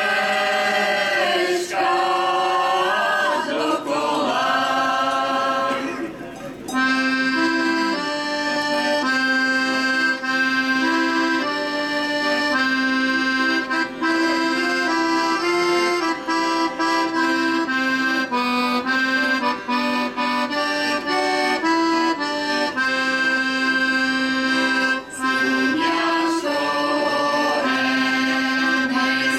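A women's folk choir sings with accordion accompaniment. About six seconds in the voices stop and the accordion plays an instrumental interlude alone. The singing comes back in near the end.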